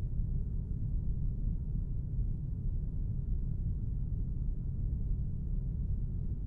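A steady, deep rumble with no distinct strikes or tones, part of a haunted-house ambience soundscape.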